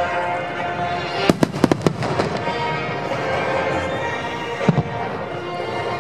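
Aerial firework shells bursting: a quick cluster of sharp bangs about a second and a half in, and a single bang near the end, over music playing throughout.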